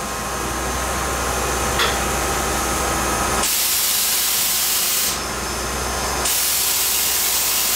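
A CNC machining centre face-milling a light skim across the rocker cover face of a Rover V8 aluminium cylinder head, under a hissing spray of coolant over a steady machine hum. The hiss grows louder for a second or two about halfway through and again near the end.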